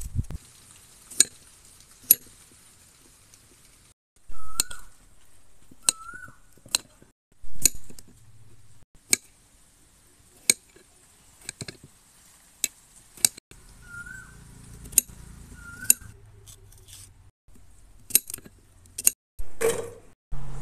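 Knife blade striking a stone cutting slab as a vegetable is cut, giving single sharp chinks about every second or so. A few short, high chirps sound between them.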